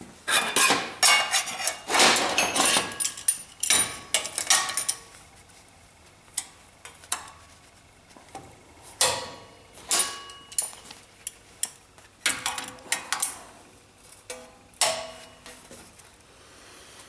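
Thin sheet steel being handled and worked by hand: irregular sharp metallic clinks and clanks, the sheet ringing briefly after some. The hits come thick in the first few seconds, then one at a time every second or so.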